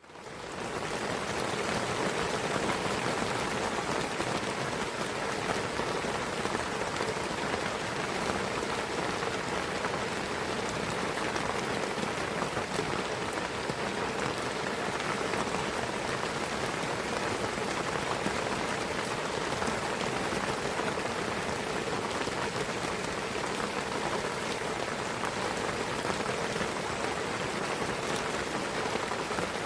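Steady rain falling in a pine forest, an even hiss of drops on foliage and ground with scattered individual drop ticks. It fades in over the first second.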